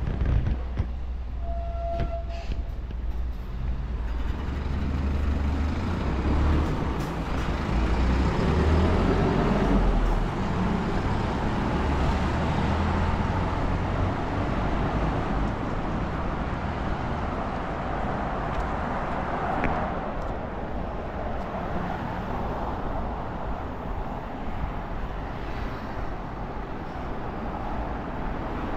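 Road traffic on a main city road: a steady wash of passing vehicles with a low engine rumble that swells and fades about a third of the way in. A short high beep about two seconds in.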